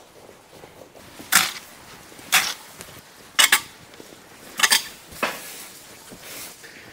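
A yard broom sweeping a wet concrete floor: a series of short scraping strokes, about one a second, starting about a second in.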